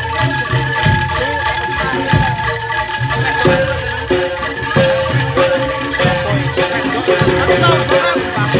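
Live jaranan (kuda lumping) ensemble music: Javanese hand drums beat a steady rhythm under held ringing tones.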